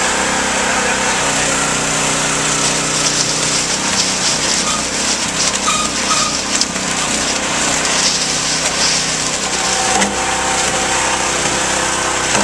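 Truck-mounted concrete mixer running: a steady engine drone under a dense, even hiss of machine noise.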